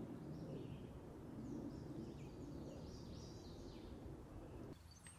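Small birds chirping and singing in a string of short phrases, over a steady low rushing noise that cuts off abruptly near the end.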